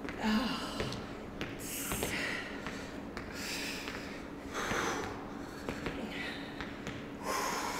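Hard breathing of people exercising: about six short, forceful exhales, one every second or so, from the effort of plank walk-outs.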